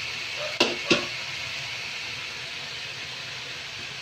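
Chop suey stir-fry sizzling steadily in a frying pan, with two sharp knocks just over half a second and about a second in.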